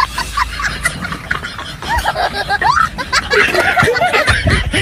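A few people giggling and laughing in short bursts, mixed with bits of chatter.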